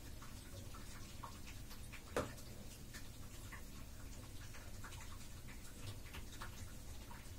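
Faint, irregular crackling and ticking from soap foam bubbles popping on shallow water draining out of a bathtub, with one louder plop about two seconds in.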